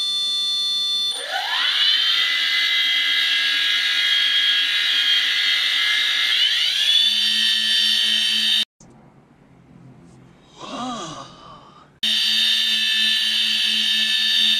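3DR Solo quadcopter's brushless motors spinning on the table with no propellers fitted, a high whine that rises in pitch about a second in and again near the middle, then holds steady. The owner finds the motors a lot louder with the new Green Cube (Pixhawk 2.1) flight controller. The whine drops out for about three seconds, with a short voice-like sound in the gap, then returns.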